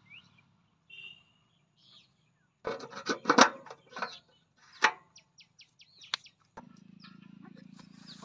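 Sharp knocks and clatter of a fuel cap being set on and screwed down on a power weeder's petrol tank, with birds chirping in between. A low steady hum starts near the end.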